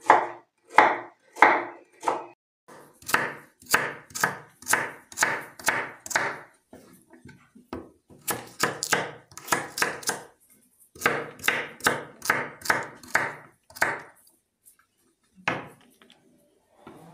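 Kitchen knife chopping carrots on a wooden cutting board, in runs of sharp, even strokes about two or three a second, broken by short pauses; the strokes stop near the end.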